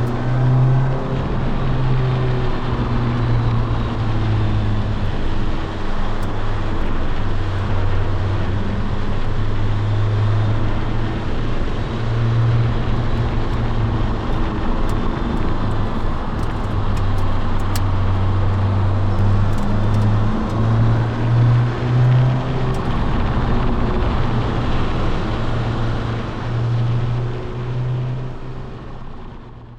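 Honda S2000's four-cylinder engine pulling the car along a winding road, its note rising and falling with the throttle and gear changes, over a steady rush of road noise; it fades out at the very end.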